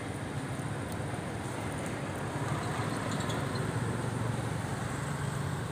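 Steady low rumble of a motor vehicle engine, growing a little louder about two seconds in.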